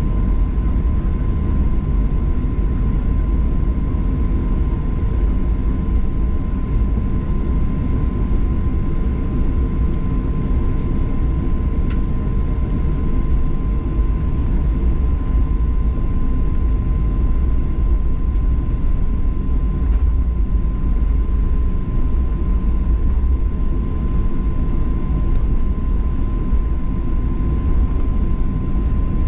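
Cabin noise inside a Boeing 737-800 with its CFM56 engines at idle: a steady low rumble with a steady high whine over it.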